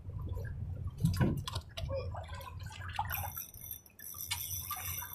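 Water splashing and lapping against a boat's hull, over a steady low rumble.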